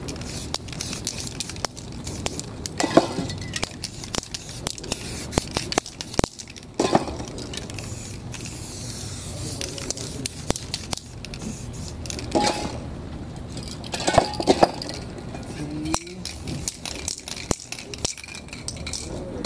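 Aerosol spray paint cans hissing in short bursts over paper stencils, with many sharp clicks and rustles as cans and stencil pieces are handled.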